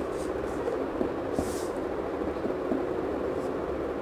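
Ballpoint pen writing on paper, with faint scratches and small ticks and one short scratchy hiss about a second and a half in, over a steady low background rumble.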